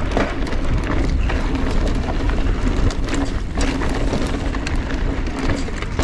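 Mountain bike rolling over a loose gravel dirt road: tyres crunching over stones and the bike clattering in short clicks, over a steady low wind rumble on the camera's microphone.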